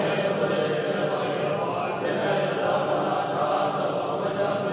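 Tibetan Buddhist monks, a group of men's voices, chanting prayers from their texts together in a steady, continuous recitation.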